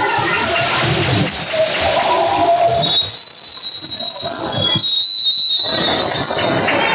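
Referee's whistle blown in a gym: several high, thin whistle tones, the longest about three seconds in, over the steady noise of the game.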